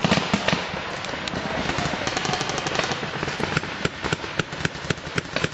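Many paintball markers firing in overlapping strings of sharp pops, several a second, coming thicker in the second half, over a steady background hiss.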